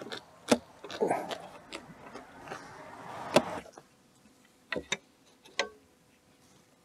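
Handling of tools and loose wood on a wooden floor panel: a few sharp clicks and knocks, with a soft scrape and rustle in between, as a steel carpenter's square and a wooden strip are picked up and laid on the boards.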